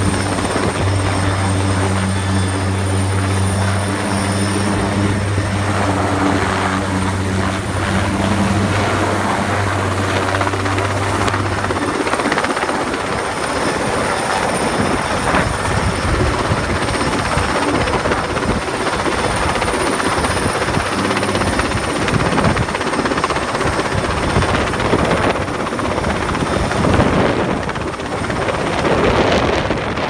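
Sikorsky S-58ET cargo helicopter, a turbine conversion of the S-58, hovering close overhead with a load slung on a long line: a steady, loud rotor and engine noise. A low steady hum underneath it drops away about twelve seconds in.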